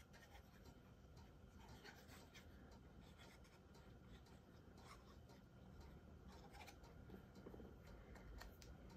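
Near silence, with faint rubbing and small ticks of a glue bottle tip being dabbed onto a small piece of cardstock and the paper being handled.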